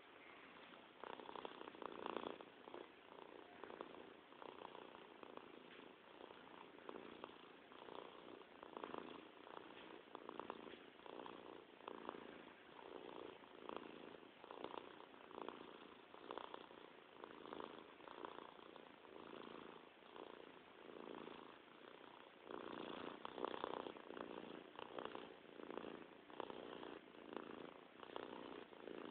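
Cat purring close up, swelling and fading in steady pulses about once a second with each breath, a little louder about three-quarters of the way through.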